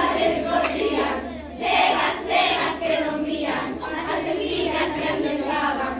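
A group of children singing together, their voices held on sustained notes with short breaks between phrases.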